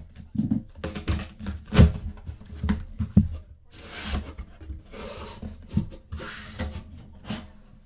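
Cardboard box and packing being pulled open and handled: irregular scraping and rubbing with several sharp knocks, the loudest about two seconds in.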